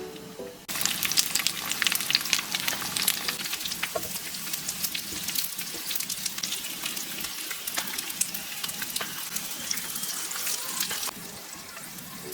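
Food sizzling and crackling in a hot frying pan. It starts suddenly about a second in and stops abruptly near the end.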